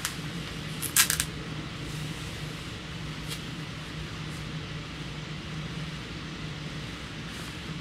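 Steady low hum with an even background hiss, and a quick cluster of sharp clicks about a second in, with one fainter click a couple of seconds later.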